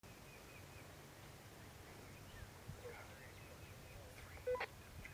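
Quiet background with faint high chirps, and a short electronic beep in two quick parts about four and a half seconds in.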